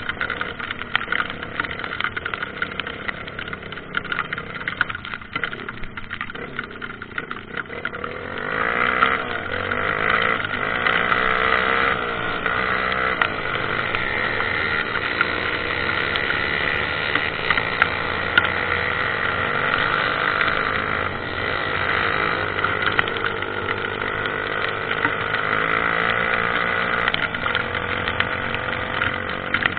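Trail motorcycle engine running steadily, getting louder about eight seconds in and staying up, its pitch wavering with the throttle.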